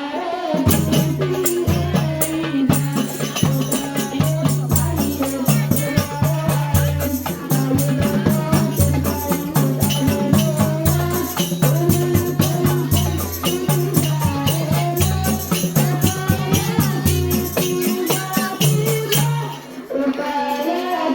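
Hadrah ensemble playing: frame drums and low drums beat a steady rhythm, the low strokes alternating between two pitches, under constant jingling and voices singing a devotional song, with a brief drop near the end.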